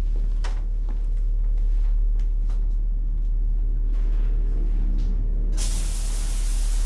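A low, steady drone with a few faint clicks over it. About five and a half seconds in, a loud hiss like static cuts in suddenly and keeps going.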